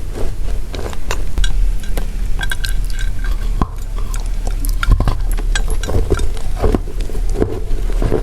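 Close-miked crunching and chewing of dry pressed chalk tiles: an irregular run of sharp cracks and gritty crunches.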